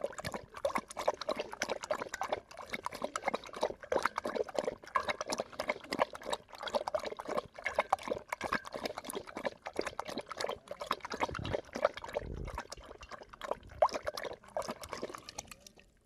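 A dog lapping water from a bowl: a fast, steady run of wet slurping clicks that stops just before the end.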